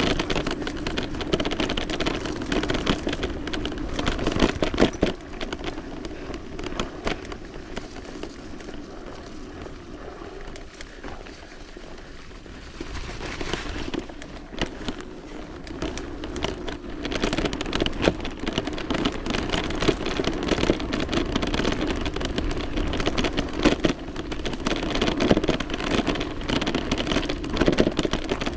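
Electric mountain bike riding down a muddy trail, heard from the bike-mounted camera: tyres in the mud and the bike and chain rattling, with a dense run of small knocks and clicks. It quietens for a stretch in the middle and picks up again.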